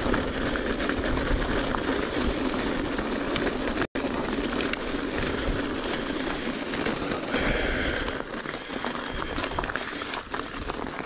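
Giant Trance mountain bike ridden fast over rough dirt trail: steady rattle of tyres, chain and frame over roots and rocks, mixed with wind on the camera microphone. The sound drops out for an instant about four seconds in and eases off near the end.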